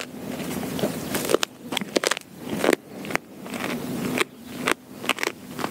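Doberman chewing a whole raw quail, with irregular sharp crunches and cracks of the small bird's bones breaking between its teeth, about eight loud crunches with quieter chewing between.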